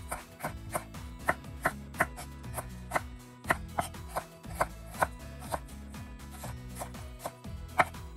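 Kitchen knife slicing through a firm vegetable core onto a wooden cutting board, about two crisp strokes a second, the loudest near the end. Background music plays underneath.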